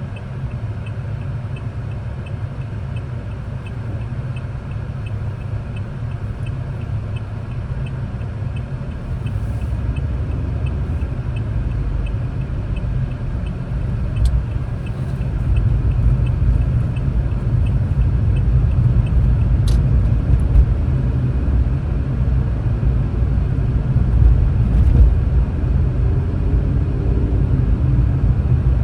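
Low rumble of a car driving in traffic, heard from the driver's seat: engine and tyre noise that grows louder about halfway through as it picks up speed. Faint rapid ticking runs through the first half, and there are two sharp clicks later on.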